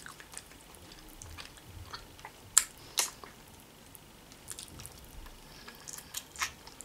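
Close-up eating sounds: scattered wet clicks and smacks of a baked chicken wing being picked apart by hand and chewed, the sharpest smacks about two and a half and three seconds in.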